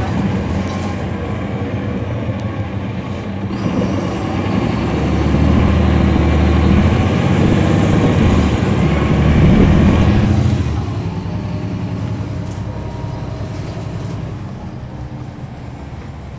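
Caterpillar C13 ACERT straight-six diesel engine of a NABI transit bus, heard from inside the bus, pulling and growing louder, then easing off about ten seconds in, its note falling away steadily after that.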